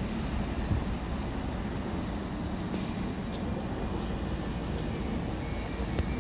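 Train running on the station tracks: rumbling rail noise with a high, steady wheel squeal that grows loudest about five seconds in.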